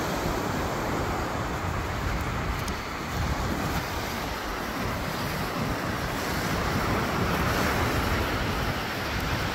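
Small waves breaking and washing up on a sandy beach, with wind buffeting the microphone. The surf swells a little louder about two-thirds of the way through.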